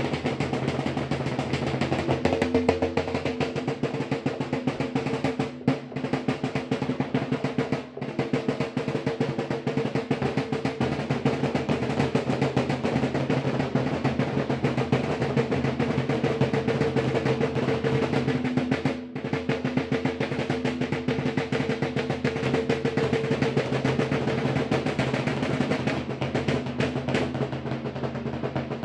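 Lambeg drums beaten with canes in a fast, unbroken rattle over a steady ringing drone, with a few split-second breaks in the beat.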